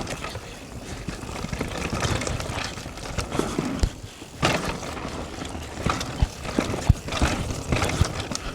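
Downhill mountain bike being ridden down a trail: a steady rush of tyre and wind noise broken by irregular knocks and clatters as the bike hits bumps.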